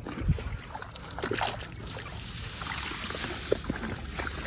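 Muddy irrigation water sloshing and trickling in a flooded furrow, with a few soft splashes and squelches in the mud.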